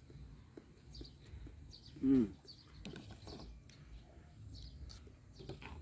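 Quiet outdoor background with faint bird chirps and scattered light clicks, broken by one short voiced call about two seconds in.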